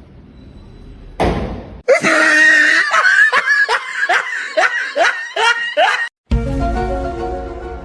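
Loud, rhythmic laughter: a run of about ten short rising 'ha' sounds lasting some four seconds, after a brief rush of noise. Music with held notes follows near the end.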